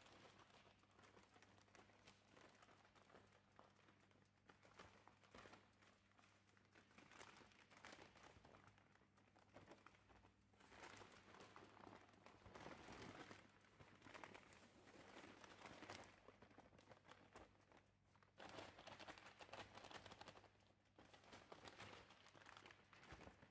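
Faint rustling and crinkling of a paper flour bag as flour is poured into the bowl of a spiral dough mixer, louder in patches in the second half. A faint steady low hum runs underneath.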